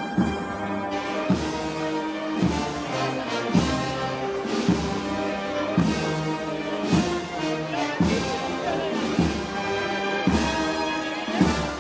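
Moros y Cristianos band music: brass playing a slow march over a heavy drum stroke about once a second.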